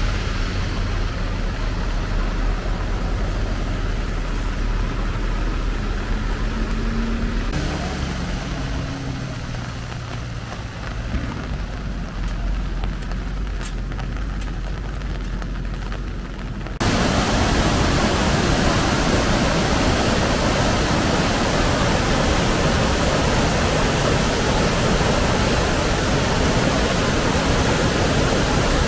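Low, steady engine hum of vehicles on a wet road for the first half, then a sudden cut to the loud, even rush of a muddy stream in flood, swollen by heavy rain and pouring under a bridge.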